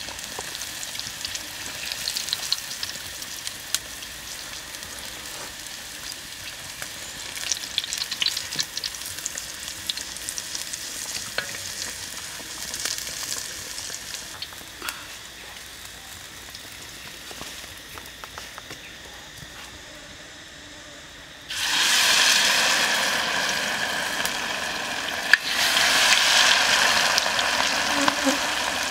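Pork deep-frying in hot oil in a wok: a steady sizzle dotted with small crackles and pops. About two-thirds of the way through it abruptly turns into a much louder, vigorous sizzle as the oil foams up heavily around the food.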